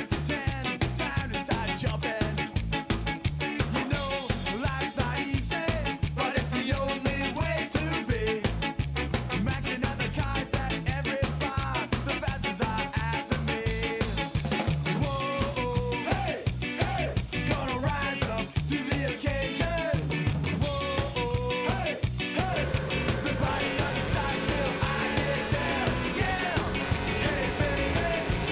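Background music with a steady fast beat and a melody.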